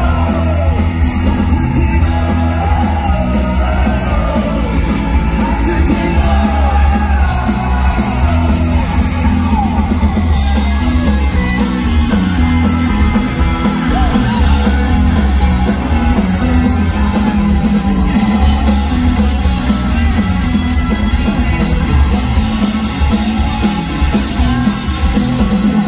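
Live ska-punk rock band playing loud: electric guitars, bass and drums, with a woman's lead vocal and yells from the crowd. Heavy, boomy bass, as heard from within the audience.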